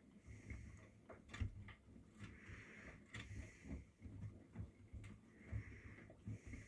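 Miele front-loading washing machine mid-cycle: the drum turning with wet laundry tumbling, giving faint irregular low thumps, clicks and a swish of water about every second and a half.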